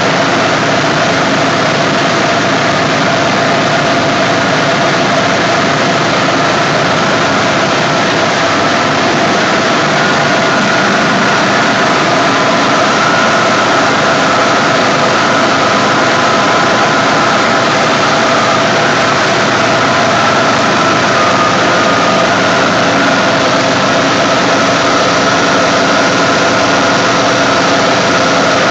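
Large reciprocating air compressors driven by high-voltage synchronous electric motors, running steadily: a loud, even machinery din with a couple of steady whining tones over it.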